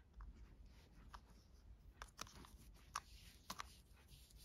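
Near silence with a few faint, scattered taps and rustles from hands handling nylon paracord and a tape measure.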